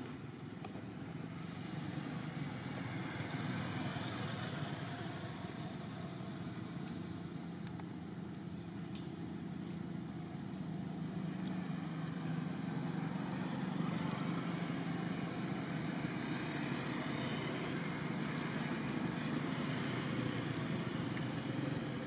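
Steady low rumble of motor traffic, growing a little louder in the second half, with a few faint clicks about ten seconds in.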